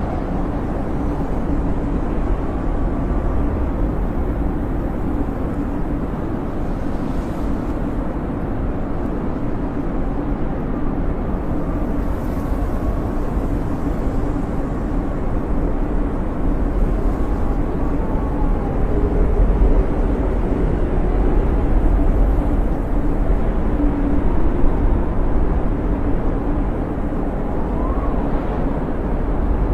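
Snowstorm wind blowing steadily with a deep rumble, and faint whistles that rise and fall now and then.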